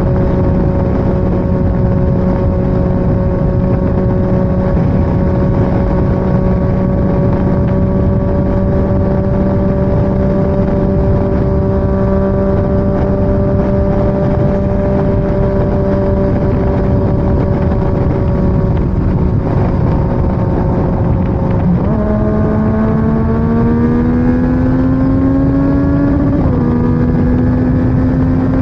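Motorcycle engine running at a steady speed under a constant rush of wind noise. About three-quarters of the way through, the engine pitch jumps up and climbs as it accelerates, then dips briefly at a gear change and holds steady again.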